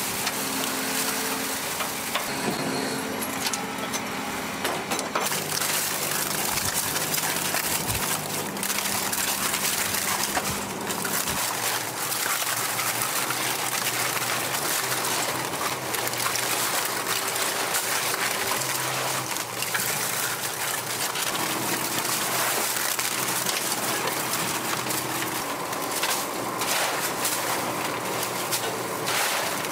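Masses of scallop shells clattering and scraping against each other and the deck as the catch is dumped, sorted and shoveled, over a rush of water and a low steady hum of machinery.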